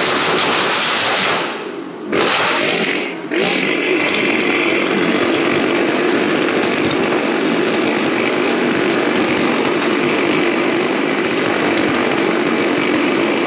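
Motorcycle engines running hard as the bikes circle the wall of death, a loud steady buzzing drone. The sound drops away briefly twice, about two and three seconds in, then holds steady.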